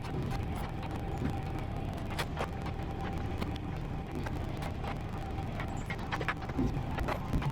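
Diesel construction machine running steadily, with a constant whine over the engine and frequent metallic clanks and knocks from the working equipment.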